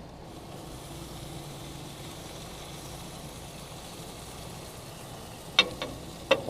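Chicken breasts sizzling on an outdoor grill, a steady hiss under a low, faint hum. A few sharp clicks come near the end, like tongs on the grill.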